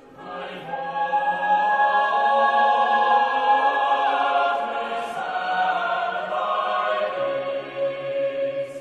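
A choir singing a slow phrase of held chords, starting together and dying away near the end.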